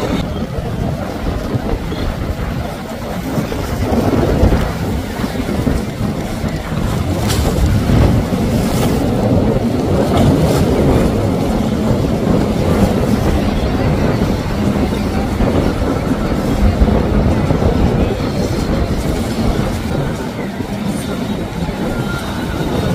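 Outboard motors on center-console boats running at speed, with water rushing and splashing against the hulls as they push through choppy waves: a steady, loud rumble with a faint drone in the second half.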